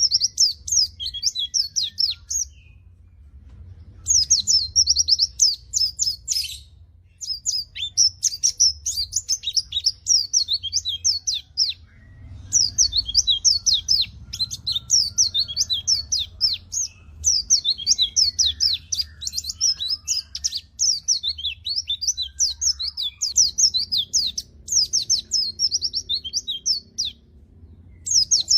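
A white-eye (pleci) singing long, rapid twittering phrases of high, quickly sweeping notes, broken by short pauses of a second or two.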